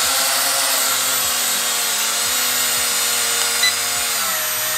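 E88 Pro mini quadcopter's propeller motors running at takeoff speed while the drone is held in the hand: a steady, high, buzzing whine that drops in pitch near the end.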